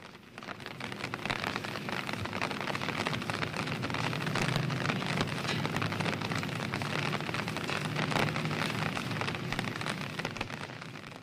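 Steady rain on window glass, many small drops ticking. It builds over the first couple of seconds and fades near the end.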